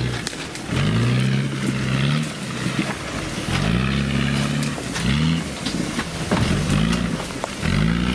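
Off-road 4x4's engine revving in repeated bursts, about five in all. Each rev climbs in pitch and then holds briefly before dropping back.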